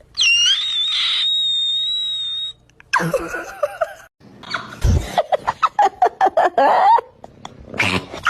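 A single high-pitched scream, held steady for about two and a half seconds, followed by a few seconds of laughter.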